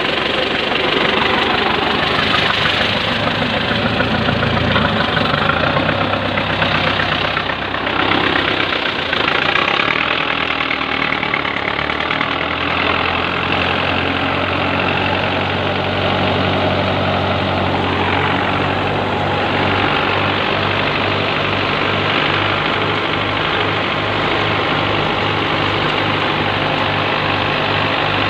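Belarus tractor's diesel engine running a PTO-driven wheat thresher: a steady engine drone under the thresher's rushing whir. In the second half the engine note pulses regularly.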